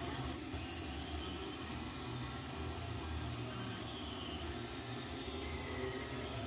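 Delta 3D printer with a Boots Industries belt drive running a print: a steady hum of motors and fans, with faint, shifting stepper-motor tones as the carriages travel on their belts.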